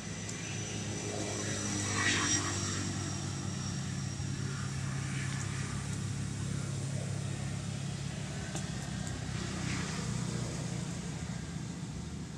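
A steady low engine drone with a faintly wavering pitch, and a brief higher sound about two seconds in.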